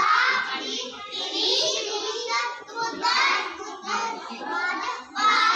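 Young children singing with high voices, in continuous sung phrases.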